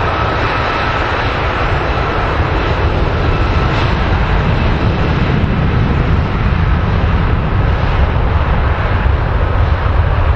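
Airbus A330-300 twin jet engines at takeoff thrust during the takeoff roll: a loud, dense jet roar whose low rumble grows heavier about halfway through. A faint high whine fades out over the first few seconds.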